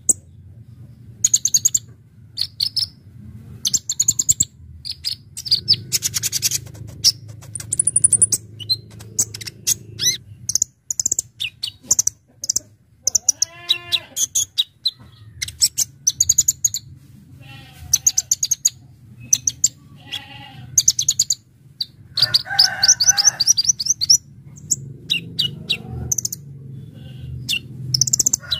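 Kolibri ninja (Konin) sunbird singing: rapid runs of sharp, high chirps and fast trills in bursts, separated by short pauses.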